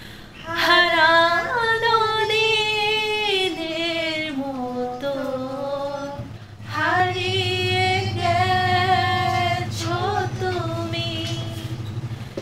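A woman singing a slow Bengali song alone, in two long phrases of held, gliding notes with a short breath-pause about six seconds in. A steady low hum sits under the second phrase.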